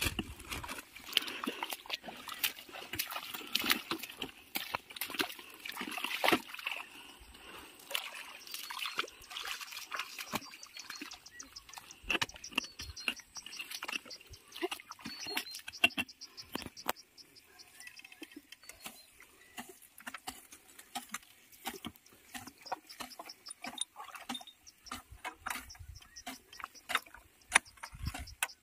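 Wet mud and water squelching and splashing in a flooded paddy field, with scattered sharp clicks and knocks from hands and boots working around a walking tractor's cage wheels and tiller. No engine is running.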